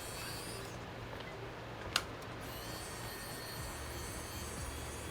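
Steady low hum with a single sharp click about two seconds in.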